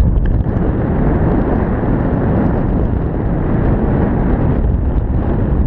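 Steady low wind noise buffeting the microphone, from the airflow of a tandem paraglider in flight.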